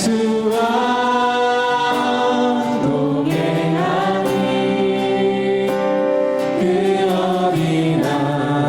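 A group of voices singing a Korean worship hymn together, holding long notes that change every second or two.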